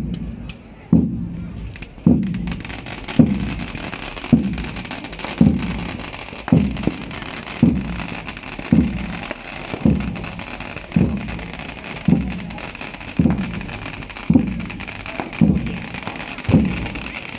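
A deep drum beat, one hit about every second, over a steady high hiss.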